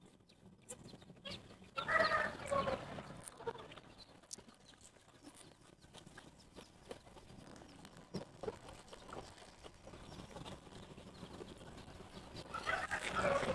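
Chicken calling about two seconds in and again near the end, with faint clicks of eating between the calls.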